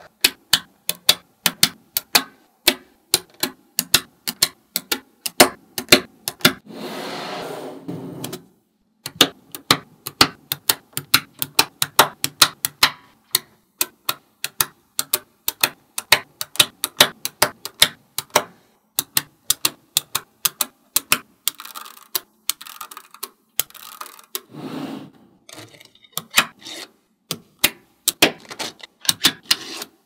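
Small neodymium magnetic balls clicking sharply as strips of them snap into place, two or three clicks a second. About a quarter of the way in and again near the end they give a longer rattle.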